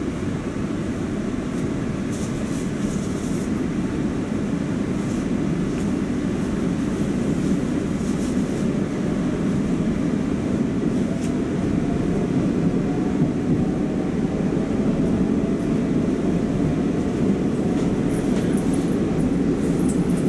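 Moscow metro 81-760 'Oka' train running through a tunnel, heard from inside the car: a steady rumble of wheels and running gear, with a faint whine that rises slowly in pitch as the train gathers speed.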